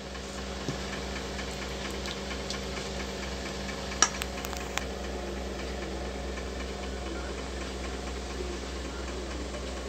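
Steady low background hum with a few light clicks, the clearest about four seconds in.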